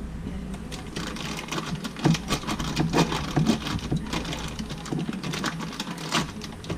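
Plastic wrapping crinkling and rustling as hands tear pieces off a brick of cream cheese, with a few soft knocks against a glass bowl.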